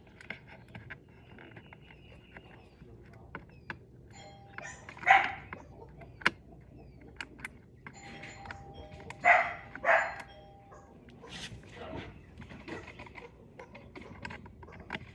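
A doorbell chime sounds twice, about four seconds in and again about eight seconds in. A dog barks loudly after each chime, once after the first and twice after the second.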